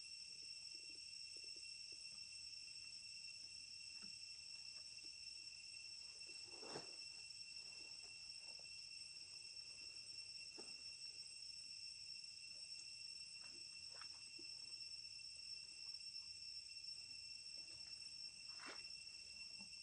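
A steady, high-pitched insect drone that does not change, with a few faint, short knocks or rustles, the clearest about seven seconds in.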